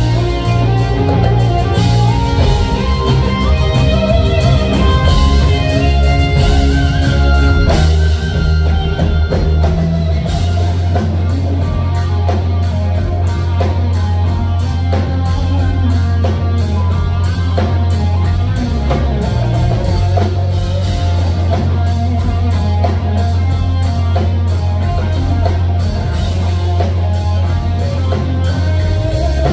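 Live instrumental rock: an electric guitar playing lead lines over bass and a drum kit. The bass is heavy and sustained, and from about eight seconds in the cymbals keep a steady beat.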